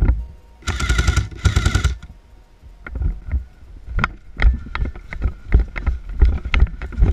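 Airsoft gun firing two short full-auto bursts of rapid clicking shots about a second in, then heavy running footsteps on the forest floor with gear jostling, about two to three steps a second.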